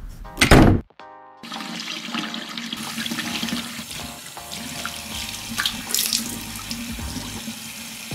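Water running from a bathroom sink tap into the basin as hands are cupped under it to wash the face, with some splashing. The running water starts about a second and a half in, after a short loud whoosh.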